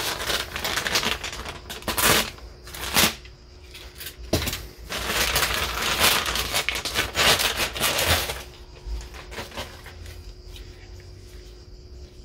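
Plastic packaging bag crinkling and rustling in uneven bursts as a new motorcycle rear sprocket is pulled out of it, dying away near the end.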